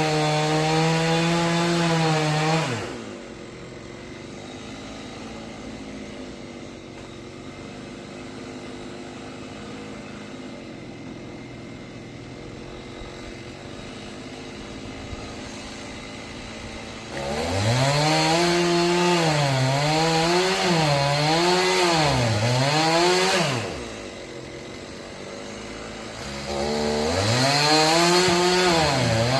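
Two-stroke chainsaw cutting into a tree trunk, running at full throttle three times with quieter idling between. In the longer runs the engine note dips and recovers as the chain loads in the wood.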